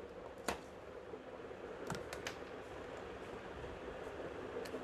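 Quiet room tone with a faint steady hiss, broken by a few faint clicks: one about half a second in, two close together about two seconds in, and one near the end.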